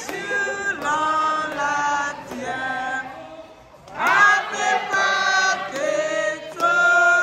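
A group of people singing together in long, held notes, a celebratory birthday song. The singing dips briefly past the middle, then swells louder.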